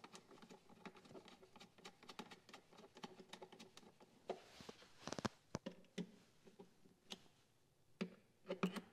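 Faint scattered clicks and taps as a metal stud is threaded by hand into a motorcycle's plastic airbox, then turned with a small hand tool; a short cluster of sharper clicks about four to five seconds in.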